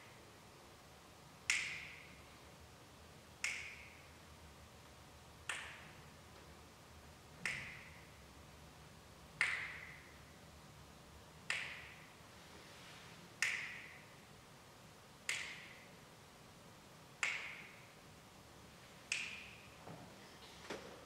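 Percussion clicks: a single sharp, dry stroke repeated evenly about every two seconds, each ringing briefly in the hall, with a couple of quicker, fainter clicks near the end.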